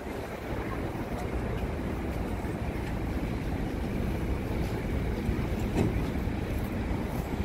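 Wind buffeting a phone's microphone, heard as a steady low rumble over outdoor street noise, with a few faint clicks.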